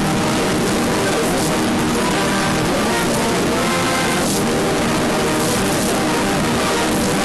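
Heavily effects-processed CB radio audio played backwards: a dense static-like hiss with layered pitched tones, held at a constant loud level and shifting about four seconds in.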